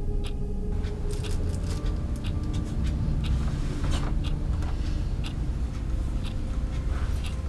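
A steady low rumble with many short ticks and clicks scattered irregularly through it.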